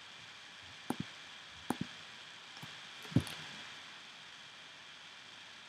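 Computer mouse clicks over a steady hiss: a quick press-and-release pair about a second in, another near two seconds, and a louder single click a little after three seconds.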